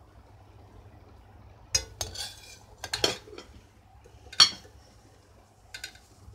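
Stainless-steel slotted skimmer scraping and clinking against a steel pot as boiled chicken pieces are scooped out of the water, in about five separate strikes. The sharpest clink comes a little after the middle.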